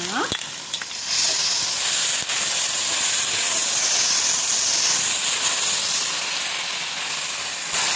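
Dates, onion and green chillies sizzling in a hot pan as a wooden spatula stirs tomato sauce through them: a steady hiss that grows louder about a second in.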